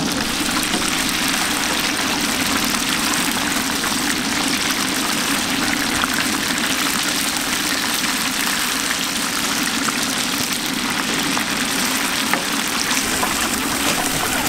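Batter-coated vegetables deep-frying in a wide pan of oil: a steady, loud sizzle with scattered small crackles.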